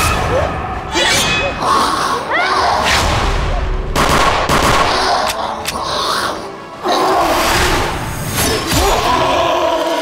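Dramatic action score mixed with fight sound effects: several sudden booms and thuds over the music.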